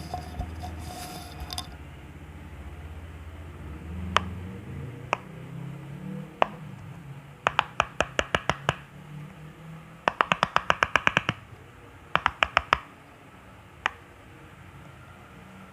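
Bubbles of a silicone pop-it fidget toy being pressed and popping with sharp clicks. A few single pops come first, then three quick runs of pops at several a second.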